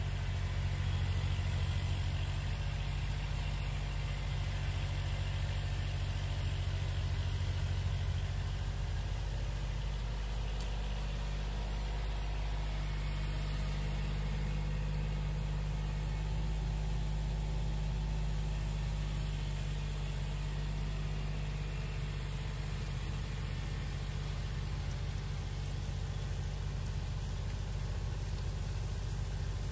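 Kubota L2501 tractor's three-cylinder diesel running steadily, driving a rear-mounted 68-inch MK Martin Meteor snowblower as it throws snow. The engine note shifts about ten seconds in.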